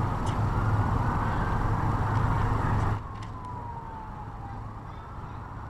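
A distant siren wailing slowly up and down over steady outdoor traffic and wind noise. About three seconds in, the background drops abruptly, and the siren glides down in pitch.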